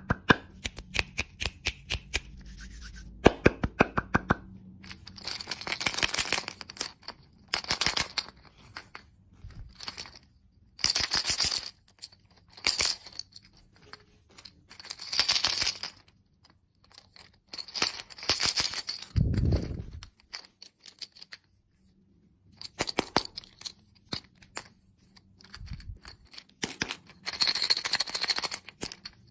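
Candy packaging handled and opened close to the microphone: quick runs of sharp clicks and ticks, then repeated bursts of crinkling, tearing plastic wrapper, with a dull thump about two-thirds of the way through.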